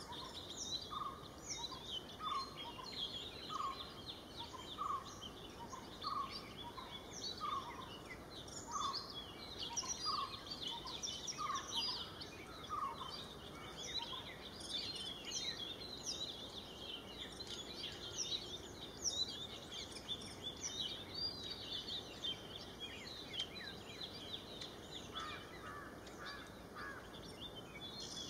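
Several wild birds calling. One repeats a short, mid-pitched note a little faster than once a second, stopping about halfway through, over many high, thin chirps and twitters from other birds.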